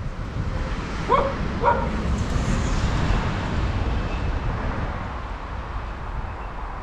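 Dog giving two short yips about a second in, half a second apart, over a steady low rumble.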